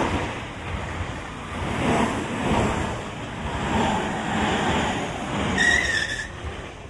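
Tobu 50050 series electric train passing close by, its wheels clattering over the rails in repeated swells. A brief high squeal sounds about five and a half seconds in, and the noise falls away as the last cars go by.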